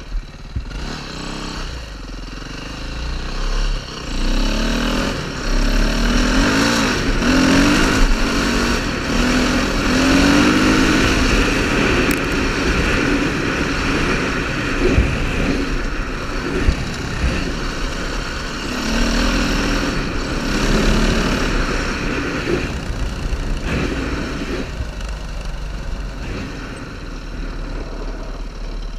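KTM 530 rally motorcycle's single-cylinder four-stroke engine under way, its revs rising and falling as it accelerates and shifts gears, loudest in the first half, with wind rumble on the bike-mounted camera and tyre noise from the gravel road.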